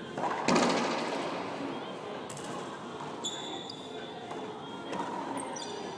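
Racquetball hit hard about half a second in, a sharp crack that echoes around the enclosed court, with a fainter knock of the ball a couple of seconds later. High thin squeaks, typical of sneakers on the hardwood court floor, come about three seconds in and again near the end.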